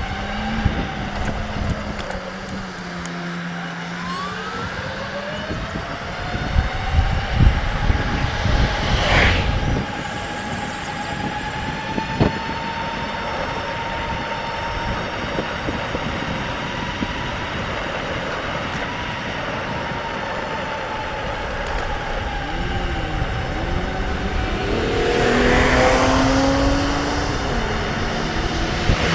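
E-bike riding along in a breeze: wind rumble on the action camera's microphone, with a steady electric motor whine that rises in pitch about four seconds in and then holds. Louder rushes of noise come about nine seconds in and again near the end.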